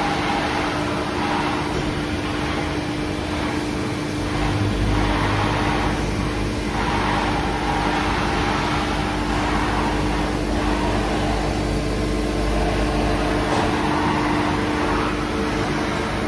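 Niigata SPN40 horizontal CNC machining centre running a motion test with the spindle stopped: a steady machine hum, with the servo-driven B-axis rotary table turning the tombstone fixture and the Y axis moving. A deeper rumble joins about four seconds in and drops out a few seconds before the end.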